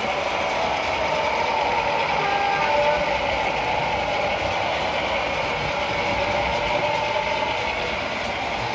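Model diesel locomotive running on a model railway layout, its sound decoder playing a steady diesel engine sound through a small onboard speaker, with the hum of the running train.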